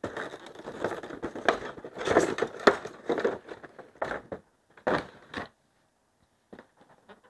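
Clear plastic packaging tray crackling and rustling as it is lifted out of a cardboard gift box and handled, with many small clicks. After about five and a half seconds it gives way to a few scattered light taps.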